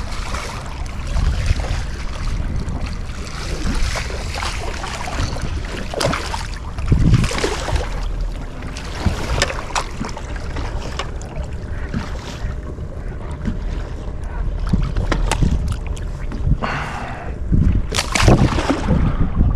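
Wind rumbling on the microphone over water around a fishing boat, with scattered short knocks and splashes, strongest near the end.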